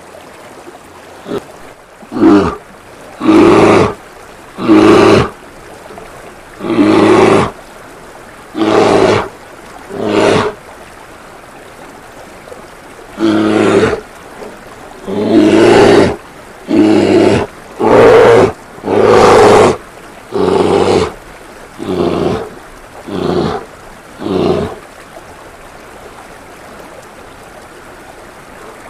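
Bear growling and roaring again and again, about fifteen short roars of half a second to a second each, over the steady sound of running water from a fountain. The roars stop about 25 seconds in, leaving only the water.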